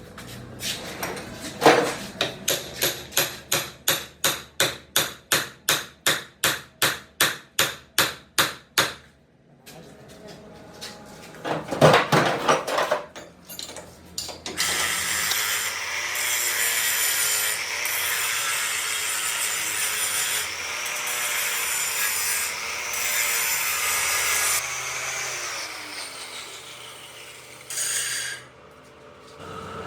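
Hammer strikes on metal in a steady run, about three blows a second for some seven seconds, then a single loud knock. After that a high-speed power tool grinds with a steady high hiss, breaking off briefly a few times, and winds down near the end with a falling whine.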